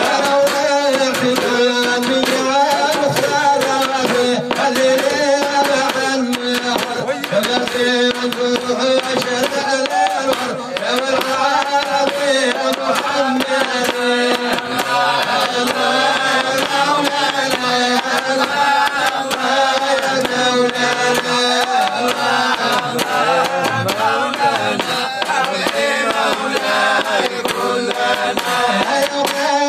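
Men's devotional Sufi chanting, a lead voice sung through a microphone in long, wavering melodic lines, with percussion strokes under it.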